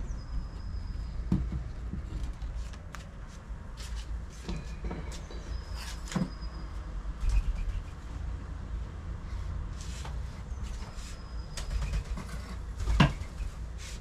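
Scattered clicks and knocks of a wood-and-metal bird feeder arm being handled on its mount, the loudest about 6 s in and another near the end, over a steady low rumble. Three short, thin high whistles sound near the start, about halfway through and later on.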